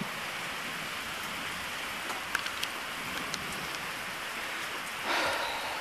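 Steady rain falling, with scattered drops ticking sharply close by. A brief louder rush of noise comes about five seconds in.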